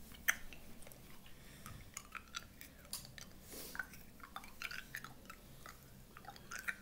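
Ice cubes being crunched and chewed in the mouth: an irregular run of small, sharp cracks. The ice is very hard.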